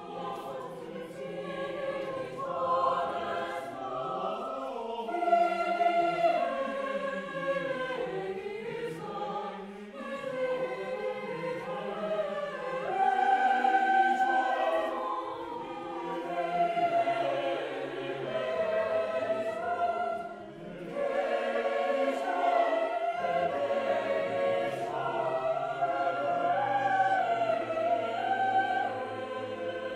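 Chamber choir singing in several parts, holding long, overlapping notes, with a brief pause about twenty seconds in before the voices come back in.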